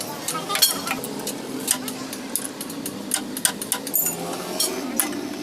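Irregular sharp metallic clicks and knocks of hand tools at work on car parts, over indistinct voices.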